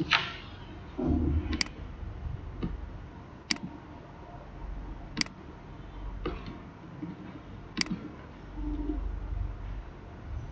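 Computer mouse and keyboard clicks while selecting and copying text: single sharp clicks a second or two apart, about half a dozen in all, over a low room hum.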